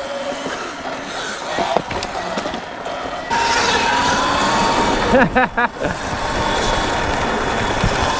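Sur Ron electric dirt bike being ridden along a dirt trail. The riding noise gets louder about three seconds in as the bike speeds up, with the electric motor's thin whine rising a little.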